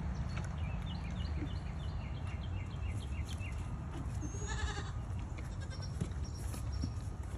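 A goat bleats once, briefly, about four and a half seconds in. Birds chirp in a quick run of short notes before it, and a steady low rumble runs underneath.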